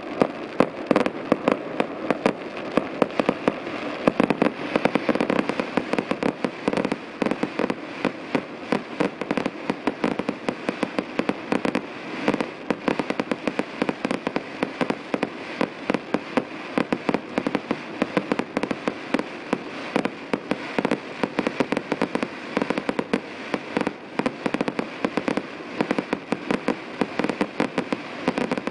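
Fireworks display: aerial shells bursting in a dense, unbroken barrage of bangs and crackles, several a second, over a steady sizzling crackle.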